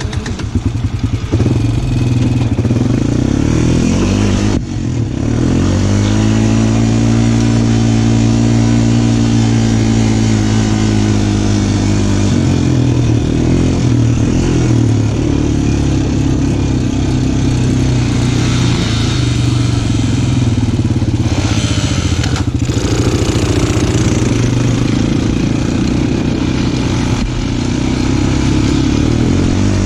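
Small off-road vehicle engine running again just after a stall: it runs roughly for the first second, then picks up. Its pitch climbs and holds as it is throttled up, with dips and changes in speed along the way.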